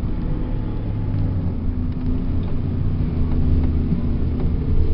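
Steady low hum of a car's engine and running gear, heard from inside the cabin.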